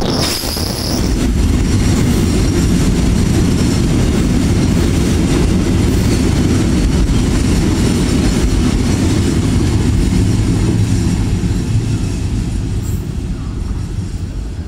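A loud, steady low rumble of a moving vehicle, easing off over the last couple of seconds.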